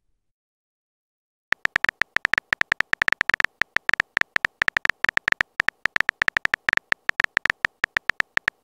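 Phone keyboard typing sound effect: rapid, irregular key clicks, each with a short high tone, starting about a second and a half in. Each click marks a keypress as a text message is typed.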